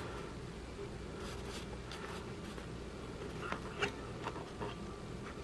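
Steady low room hum with a scattering of faint clicks and light scraping or rustling, a little louder about three and a half seconds in.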